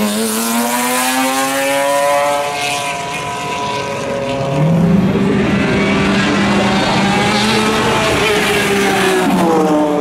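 McLaren F1 GTR's 6-litre BMW V12 racing engine accelerating hard, its pitch rising, then easing off about three seconds in. It picks up again from about four and a half seconds, holds a high steady note, and drops away near the end as the car passes.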